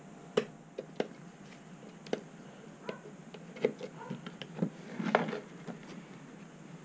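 Light clicks and knocks of a plastic LED flood light and a plug-in USB meter being handled on a workbench, with a louder clatter about five seconds in.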